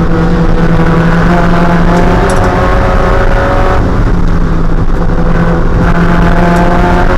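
Spec Miata's 1.8-litre four-cylinder engine running hard under racing load, its pitch climbing as it accelerates, with a short dip about four seconds in before it pulls up again.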